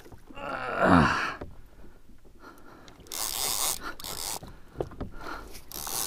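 A man's strained groan of effort, falling in pitch, about a second in while fighting a fish on a heavy rod and reel. It is followed by two short bursts of hiss, one about three seconds in and one near the end.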